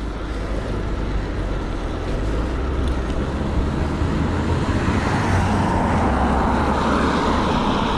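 Road traffic noise and low wind rumble on the microphone, heard from an electric bike riding along the road. The hiss builds from about five seconds in.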